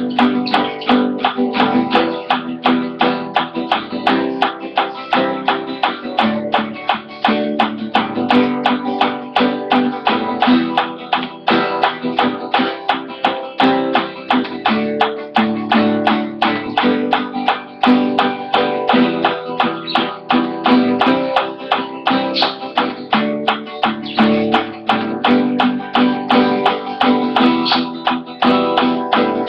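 Acoustic guitar strummed with a pick in a steady, even rhythm of repeated chord strokes.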